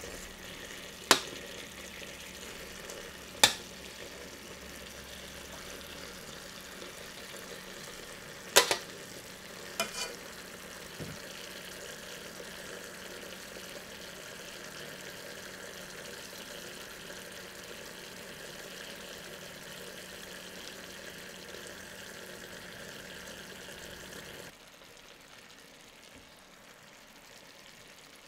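Chicken and sweet potato sizzling in a stainless steel pot, a steady frying hiss. Sharp metallic clinks of tongs against the pot come a few times in the first ten seconds. Near the end the sizzle drops to a faint hiss.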